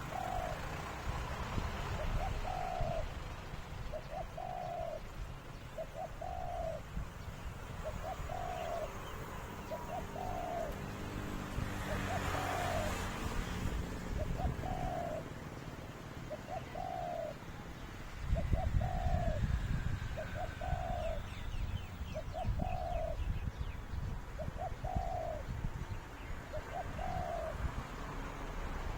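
A dove cooing: one short, arched coo repeated evenly about every second and a half, over a low rumble of wind on the microphone that grows louder about two-thirds of the way through.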